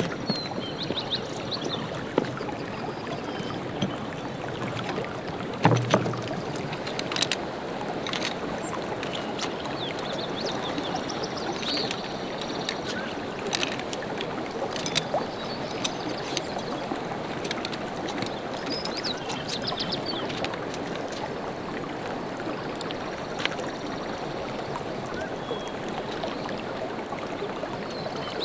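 Stream water rushing steadily over rocks, with scattered small clicks and faint high chirps over it. A dull thump about six seconds in is the loudest moment.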